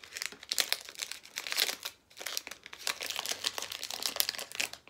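A small collectible's blind-bag package being torn open and crinkled by hand: a rapid run of crackles with a brief pause about two seconds in.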